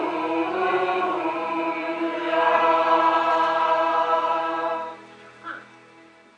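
Mixed choir of men's and women's voices singing, ending on a long held chord that cuts off about five seconds in, leaving a brief fading tail.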